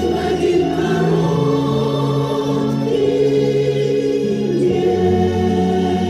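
Women's choir singing long held chords over instrumental accompaniment with sustained low bass notes.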